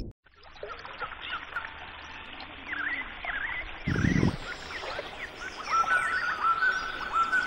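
Birds chirping and twittering, many short rising and falling calls over a faint hiss, growing busier near the end; a brief low thud about four seconds in.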